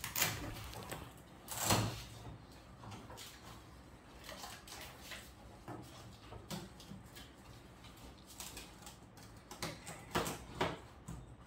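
Fabric of a large softbox rustling and swishing as its white inner diffusion cloth is pulled and fitted around the inside of the reflective shell, with a few louder swishes about two seconds in and twice near the end.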